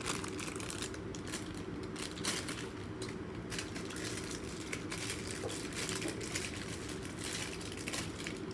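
Plastic packaging of an Angry Birds Mash'ems toy crinkling and rustling as it is opened and handled, in irregular crackles.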